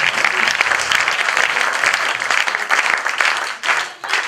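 Audience applauding, a dense crowd of hand claps that thins and dies down near the end.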